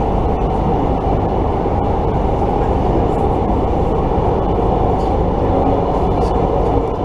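Moving train heard from inside the carriage: a steady rumble of wheels running on the rails.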